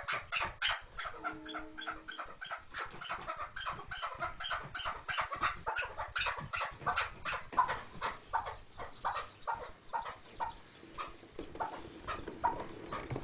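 Chukar partridge calling: a long run of short, clucking notes repeated about three to four times a second.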